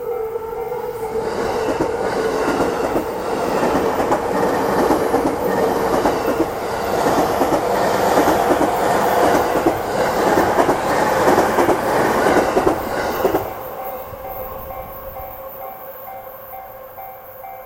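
A Japanese level-crossing alarm bell dings in a steady, even rhythm as a Yamanote Line electric train runs over the crossing, its wheels clattering over the rail joints. The train noise builds for about twelve seconds, then cuts off suddenly, and the crossing bell keeps ringing and fades.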